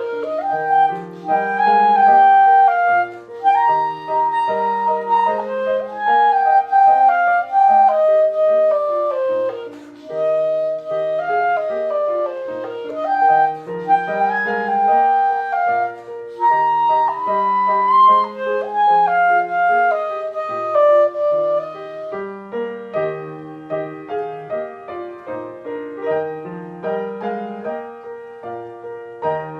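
Clarinet playing a classical melody with piano accompaniment; the music gets softer about two-thirds of the way through.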